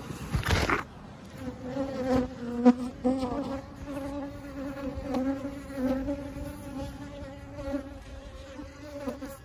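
Honeybees buzzing at their nest entrance in a wall, a steady low hum that swells and fades as bees fly close to the microphone. A brief loud rustle in the first second.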